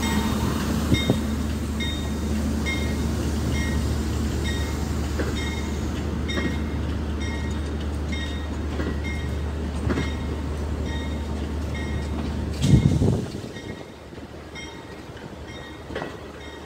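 Stainless-steel passenger train carriages rolling slowly past: a steady low rumble with occasional clacks of wheels over rail joints. The rumble swells briefly about thirteen seconds in, then fades. A bell dings steadily behind it, about three times every two seconds.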